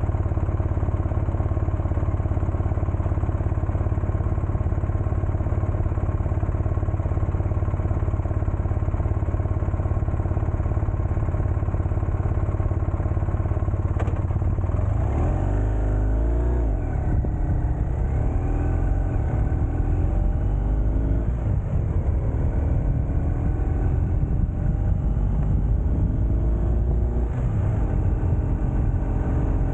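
Steady low rumble of wind and road noise while riding a highway. From about halfway through, engine notes rise and fall in pitch several times.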